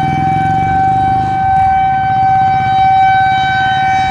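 Federal Signal 2001 outdoor tornado warning siren sounding its steady alert tone during a routine test, holding one pitch without rising or falling. Very loud.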